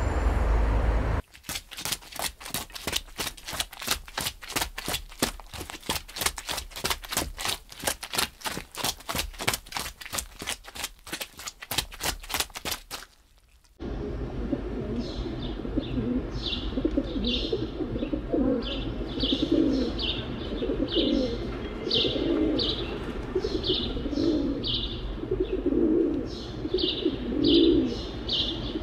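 A quick, even run of sharp taps for about twelve seconds, then a short pause. After it, pigeons coo in repeated phrases while small birds chirp above them.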